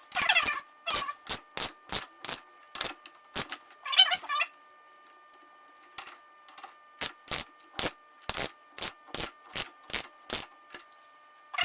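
Sharp metallic clicks, a few a second with pauses, and short rapid clicking runs: a wrench working the nut of a homemade threaded-rod bearing-cup press, pressing a headset bearing cup into a bike's head tube.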